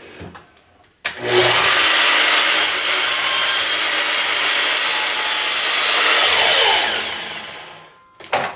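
Miter saw started about a second in, its motor and blade running at full speed through a crosscut of a board to length, then switched off, the blade spinning down with a falling pitch over about a second. A short knock near the end.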